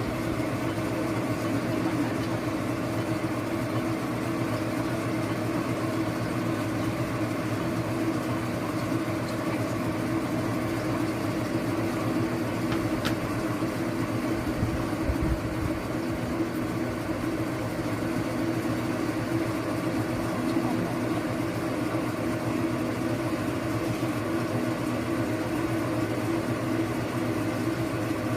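Electric oil press running steadily with a constant motor hum while pressing gegeolmu radish seed for oil.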